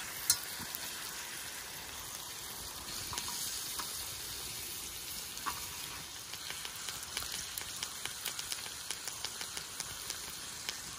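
Thick-cut pork belly sizzling as it fries, a steady hiss with small pops and crackles of spitting fat that come more often in the second half. A single sharp click comes just after the start.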